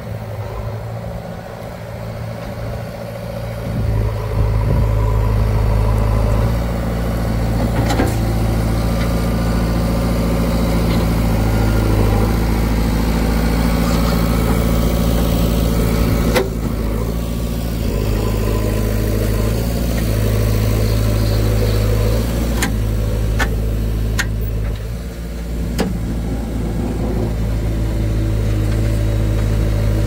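JCB 3DX backhoe loader's diesel engine running under working load, picking up in revs about four seconds in. A few sharp knocks from the working machine are scattered through the second half.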